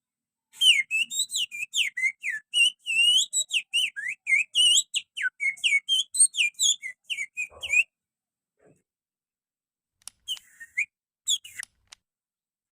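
Human finger whistling, using thumb and little finger, that imitates the song of an oriental magpie-robin (kacer). A fast run of varied, sliding whistled notes lasts about seven seconds, then after a pause comes a short second phrase near the end.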